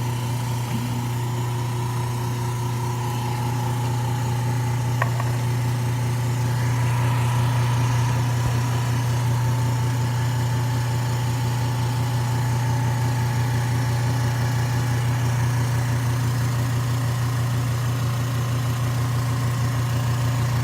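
Screen laminating press running with a steady motor hum and fast, even pulsing, the pump working to pull the air out around the glass during lamination. A single short click about five seconds in.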